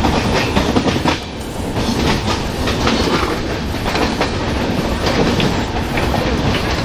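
Passenger train coach running at speed, heard from the window: a steady rumble of wheels on rails with an irregular clickety-clack of clicks and knocks as the wheels pass over the track. There is a brief dip in loudness about a second in.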